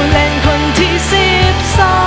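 Background music with drums, a steady bass line and a wavering melody on top.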